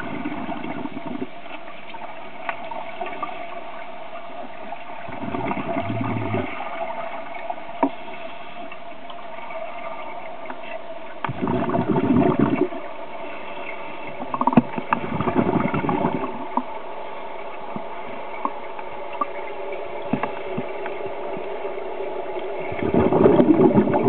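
Scuba regulator exhalations heard underwater: a rush of bubbles every four to eight seconds, about five in all, over a steady hum.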